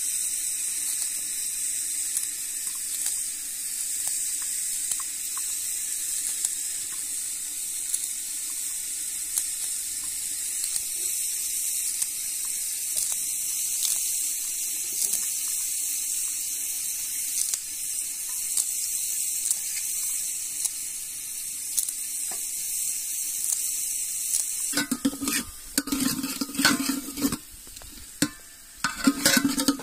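Knife cutting green onion stalks against an aluminium plate, faint taps over a steady hiss. About 25 seconds in, a metal spoon clatters and scrapes, stirring food in a steaming aluminium pot.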